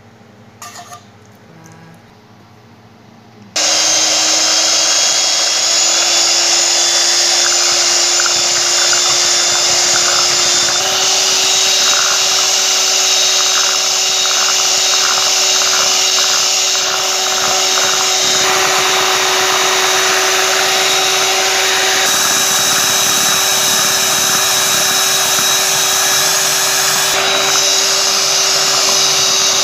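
Electric hand mixer switched on about three and a half seconds in, then running steadily with its twin beaters whipping condensed milk and cream in a glass bowl. The motor's hum rises a little in pitch as it comes up to speed.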